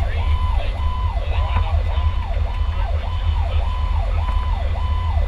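Fire truck's siren heard from inside the cab, its pitch rising and falling quickly, about three sweeps every two seconds, over the steady low rumble of the engine and road.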